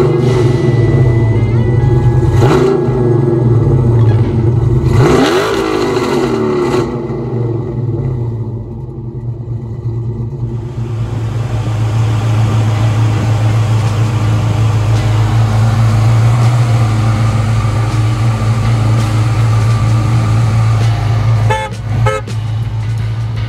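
Dodge Challenger SRT-8's V8 idling with a steady, deep exhaust drone, revved once about five seconds in with a quick rise and fall in pitch.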